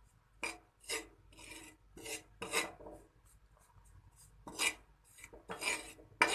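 A utensil scraping and stirring flour and ghee in a pan: a series of short, uneven scraping strokes as the atta is worked into the ghee.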